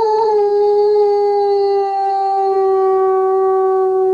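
German Shepherd dog howling: one long held note that slides slowly lower in pitch.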